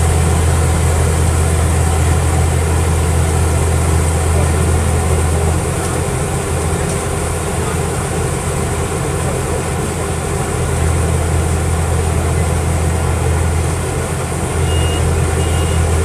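Combine harvester's engine running steadily as it cuts rice, a deep hum that eases off for about five seconds in the middle and briefly again near the end.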